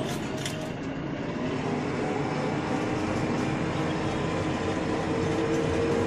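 A JCB 3DX backhoe loader's diesel engine runs steadily while driving, heard from inside its cab. A few sharp clicks come in the first second.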